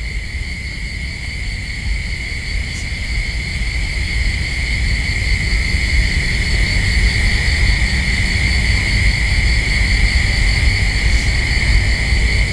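Steady eerie background drone: an even high ringing tone with a faint pulsing shimmer above it, over a continuous low rumble, growing a little louder after the first couple of seconds.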